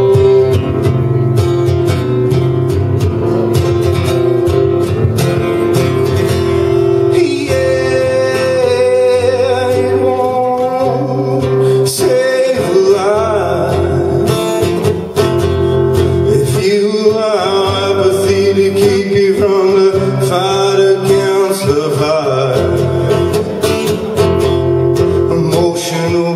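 Acoustic guitar strummed steadily in a live solo performance, with a man singing over it through the microphone.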